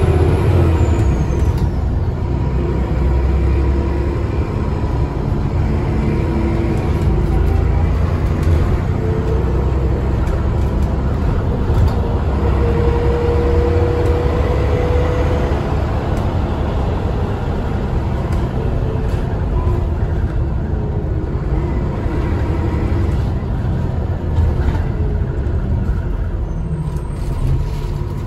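An Alexander ALX400 double-decker bus's diesel engine running under way, heard from inside the cabin as a steady low rumble. A turbo whistle sounds at times.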